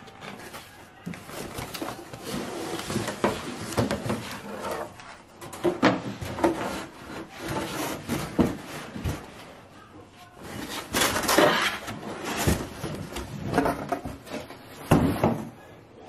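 Cardboard box and paper wrapping being handled: rustling, rubbing and scraping in irregular bursts with a few knocks, as a boxed hair dryer unit with a corrugated plastic hose is pulled out.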